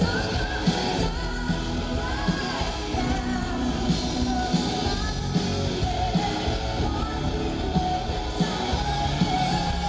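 Symphonic metal band playing live: a woman sings the lead melody over drums, guitars and keyboards, with a steady drum hit about every 0.8 seconds.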